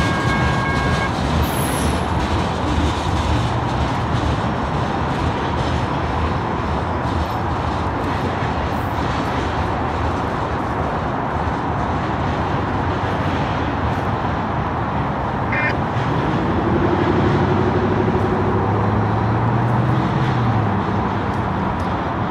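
Steady rumble of a freight train rolling away mixed with road-traffic noise, with a high steady squeal that stops about a second in. Near the end a low drone rises in pitch for a few seconds.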